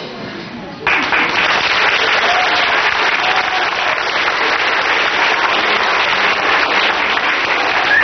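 Audience applauding, breaking out suddenly about a second in as the end of the song dies away, and keeping up steadily.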